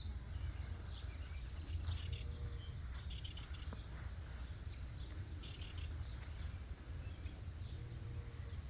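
Outdoor farm ambience: a steady low rumble of wind on the microphone, with birds chirping here and there.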